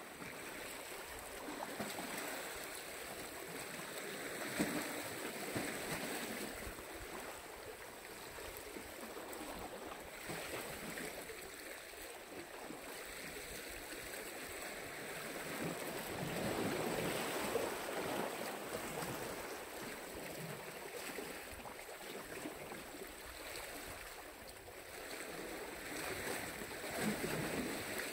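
Black Sea waves washing onto the shore: a continuous rushing that swells and eases every few seconds, loudest about two-thirds of the way through.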